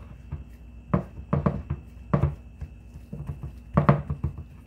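Gloved hand patting and pressing a cube steak down into a dish of seasoned flour: a run of irregular soft pats and dull thumps against the ceramic baking dish, with the loudest around one, two and four seconds in.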